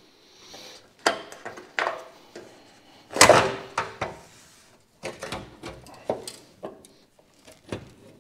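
Knocks, clicks and scraping of a 1952 Chevy Styleline's exterior sun visor being worked loose against the roof and windshield trim, the loudest a longer scrape about three seconds in.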